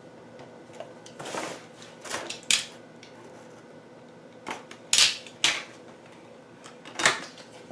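Packaging of a boxed nesting-doll set being handled and opened by hand: a series of short rustles and clacks, the loudest about five and seven seconds in.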